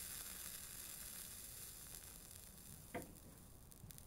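Near silence: a faint hiss that slowly fades, with one short knock about three seconds in.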